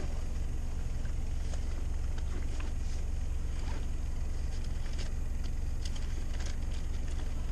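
A steady low hum of a running engine or motor, with scattered light clicks and knocks.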